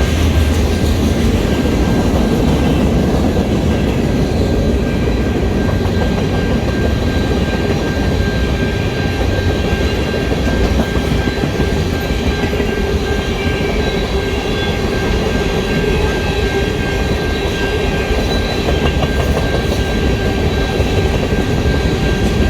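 Train running past at close range: a loud, steady rumble with wheel clatter and a steady high-pitched whine.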